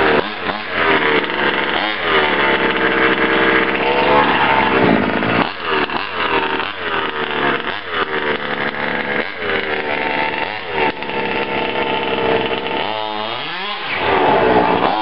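Freshly rebuilt 30.5 cc two-stroke engine of an HPI Baja 5B RC buggy, revved up and down again and again. It holds high revs for a few seconds at a time, drops low near the end, then climbs again.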